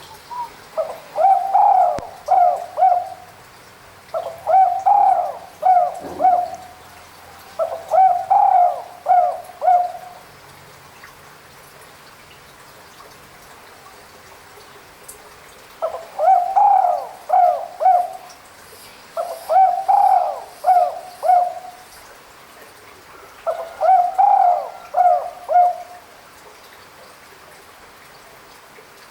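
Spotted dove cooing: six multi-note coo phrases, three close together, then a pause of about six seconds, then three more. It is a call used to lure a rival dove.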